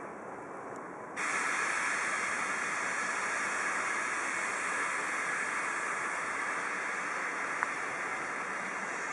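Steady hiss of city traffic, cars and a tram moving on snow-covered streets. The hiss jumps suddenly louder about a second in and then holds steady.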